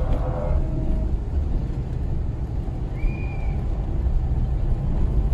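Steady low rumble of a car driving along a road, heard from inside the cabin. A brief high tone sounds about three seconds in.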